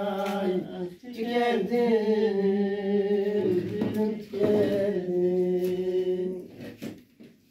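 A man singing a Turkish folk song (türkü) unaccompanied, drawing out long wavering held notes in three phrases, the last dying away near the end.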